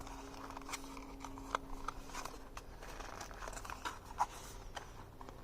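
A bicycle bell's box and packaging being opened and handled: faint rustling with scattered light clicks and taps.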